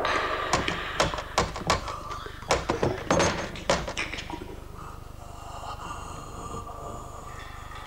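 Film sound effects: a quick, irregular run of sharp clicks and knocks for about four seconds, then a quieter stretch with faint steady tones.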